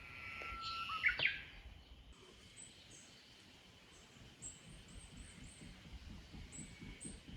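Wild birds calling: a louder call in the first second and a half, then a string of short, very high chirps.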